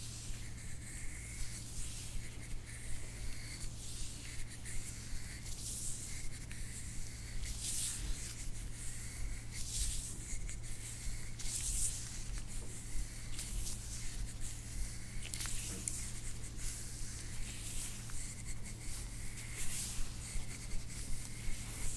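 Hands rubbing and pressing over a patient's skin during soft-tissue massage: a run of soft swishing rubs a second or two apart, over a steady low hum.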